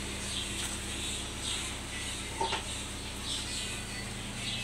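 Birds chirping in short high calls about once a second over a steady low hum, with one sharp click about halfway through.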